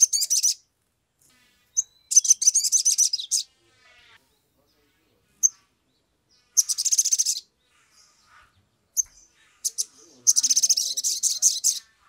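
Male olive-backed sunbird (sogok ontong) singing: four bursts of rapid, high, twittering trills, with single sharp chips between them.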